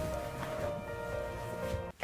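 Background music of sustained, held notes, which stops abruptly just before the end.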